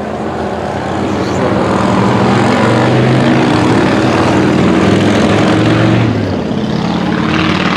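A loud engine passing close, swelling over the first second or two, holding steady, then dropping about six seconds in. It surges briefly again with a hissing edge near the end.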